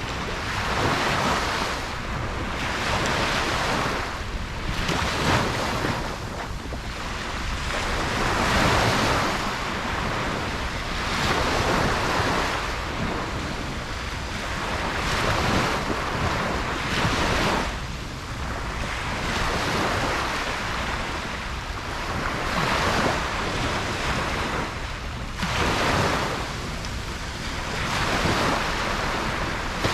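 Ocean waves breaking and washing up a beach, the surf swelling and easing every few seconds, with some wind on the microphone.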